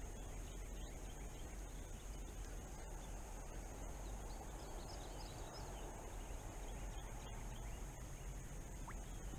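Quiet lakeside outdoor ambience: a faint steady hiss under a constant high whine, with a few faint high chirps about four seconds in.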